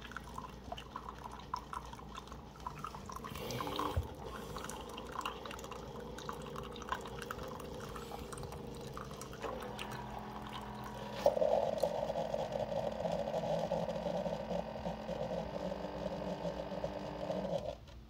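Keurig coffee maker running its descale cycle, a stream of water pouring from the brew spout into a ceramic mug while the machine runs. The pouring gets louder about eleven seconds in and stops suddenly just before the end.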